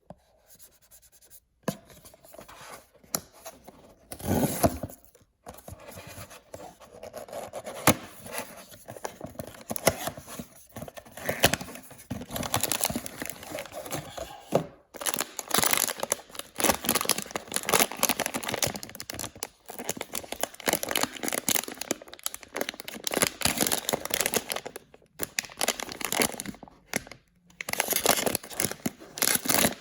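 Toy packaging being torn open and crinkled by hand: irregular crackling rustles and rips with sharp clicks, busiest after the first couple of seconds.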